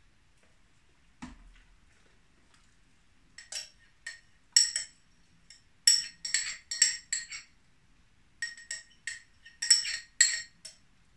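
A spoon clinking against a glass jug, tapping out the rehydrated yeast into a bucket of wort, in quick runs of ringing clinks from about three seconds in. A single softer knock about a second in.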